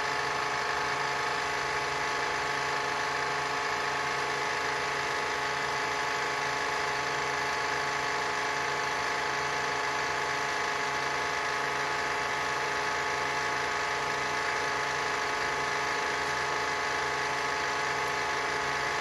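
General-purpose metal lathe converted to CNC, its spindle motor driven by an inverter, running steadily with a hum of several steady tones while the tool turns a rounded end on a metal bar.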